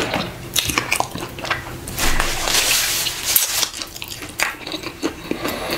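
Close-up wet eating sounds: bare fingers squelching through slimy ogbono soup and tearing apart a soup-soaked piece of fish, with many small sticky clicks and smacks and a longer hissing stretch in the middle.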